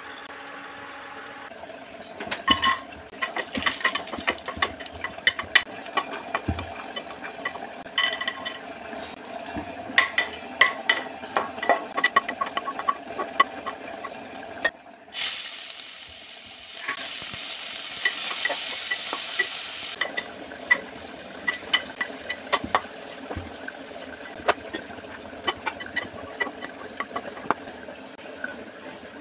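Hot ghee crackling and sizzling in an aluminium pressure cooker, with a spatula stirring and knocking against the metal in quick clicks. From about 15 to 20 seconds in comes a louder, steady sizzle of frying.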